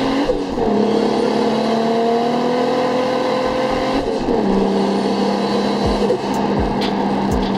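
Turbocharged 2JZ-GTE straight-six in a Lexus IS200 pulling hard under acceleration, heard from inside the cabin. Its pitch climbs, falls sharply at an upshift just after the start and again about four seconds in, then holds steady.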